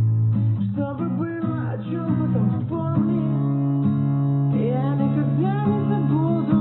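A song playing: strummed acoustic guitar with a voice singing over it.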